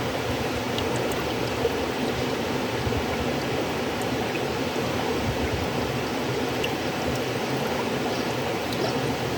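River water flowing steadily, a constant rushing with faint splashes and trickles.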